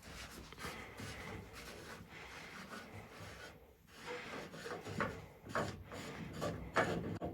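A threaded fitting being unscrewed from a boiler air separator: metal rubbing and scraping, with a few sharper knocks in the second half.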